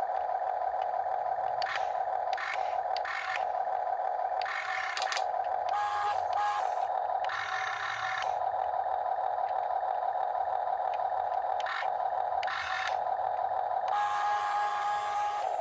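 Huina 1/14-scale RC excavator running with a steady electric whine. About ten short bursts of motor and gear whirring and grinding come on and cut off as the arm, bucket, slewing or tracks are worked.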